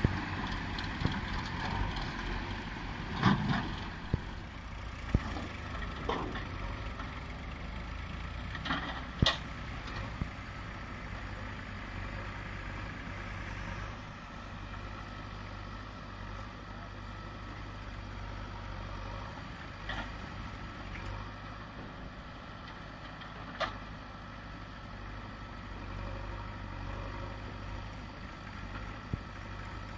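Diesel engines of a JCB backhoe loader and farm tractors running in a steady low drone. A handful of sharp knocks stand out, most of them in the first ten seconds.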